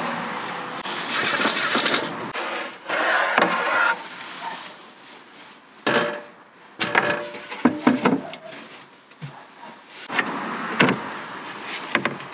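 Knocks, scrapes and clatter of metal brackets and a wooden platform board being handled and set in place, in short separate bursts with quieter gaps between.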